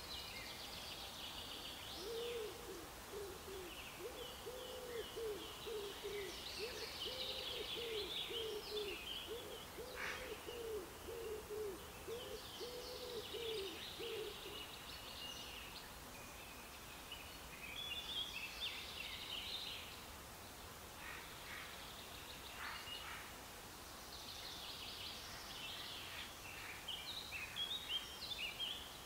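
Songbirds singing in high chirping phrases throughout. From about two seconds in to about halfway, a low hooting bird call repeats in a long even series, about two calls a second, over faint steady outdoor background noise.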